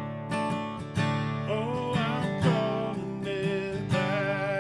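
Acoustic guitar strummed in a steady rhythm, with a man singing the melody over it from about a second and a half in.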